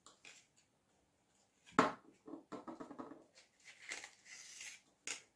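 Small hand-work noises from gluing EVA foam petals: a sharp knock on the tabletop about two seconds in, then soft rubbing and rustling of foam, and a click near the end.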